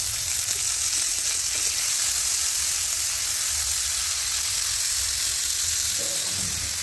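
Raw chicken pieces sizzling in hot oil and onion masala in a kadhai, a steady frying hiss. The chicken has just gone into the pan.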